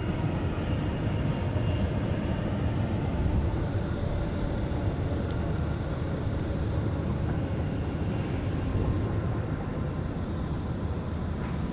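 Dodge Charger 392's 6.4-litre HEMI V8 idling, a steady low rumble.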